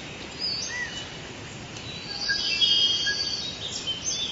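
Forest ambience: several birds chirping and whistling over a steady background hiss, with the busiest calling about halfway through.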